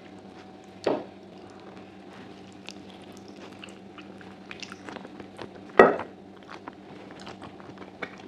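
Close-miked wet, sticky sounds of gelatinous sheep's trotters being pulled apart by hand and eaten off the bone, with many small clicks and two louder smacks, about a second in and just before six seconds in. A faint steady hum runs underneath.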